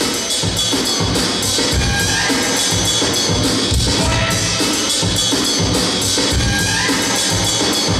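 DJ-played dance music with a steady drum beat, loud through PA speakers.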